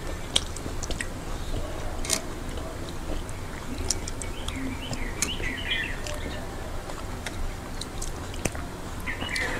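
Close-up eating sounds of people chewing soft khichuri rice eaten by hand: wet chewing with scattered small clicks and lip smacks. Faint bird chirps come and go in the middle and near the end.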